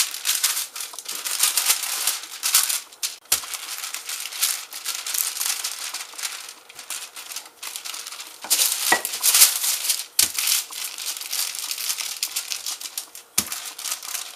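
Parchment paper crinkling and rustling steadily as cookie dough is rolled out between two sheets, with a few dull knocks on the counter.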